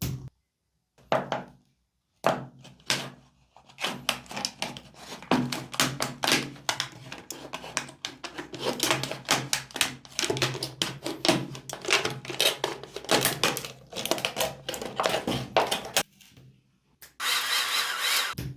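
Clatter of hard parts being handled: many irregular knocks, taps and clicks. Near the end comes a short burst of steady rushing noise lasting just over a second.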